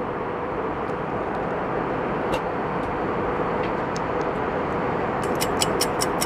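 Steady airliner cabin noise, an even rushing hum of the aircraft in flight. A faint clink of a metal spoon on a ceramic bowl comes a couple of seconds in. A fast, even ticking starts near the end.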